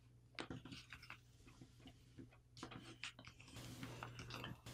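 Faint, scattered ticks and rustles of a sheet of printer paper being creased and handled by fingers, a little busier near the end as the folded paper is lifted.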